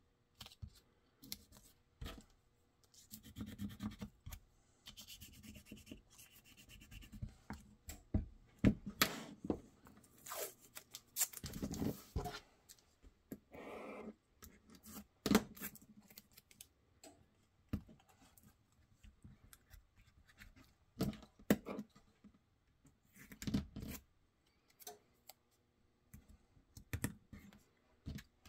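Blue painter's tape being pulled from the roll, cut or torn, and pressed and rubbed down by hand onto a pistol-and-light holster mold as blocking. It comes as irregular short rips, scratches and taps, with a longer rip about twelve seconds in.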